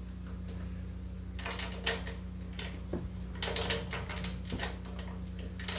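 Metal hand tools clicking, clinking and scraping in three short bursts against a lawnmower engine while its spark plug is taken out for a look, over a steady low hum.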